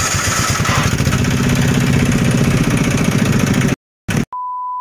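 An engine running over a steady hiss, its low even firing pulses growing louder about a second in. The sound cuts off abruptly near the end and is followed by a short, steady high beep.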